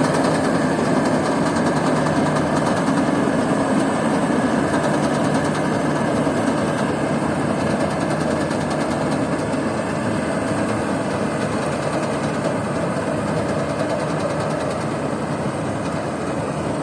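Rice combine harvester running steadily, its engine and machinery making a continuous mechanical din that slowly grows quieter.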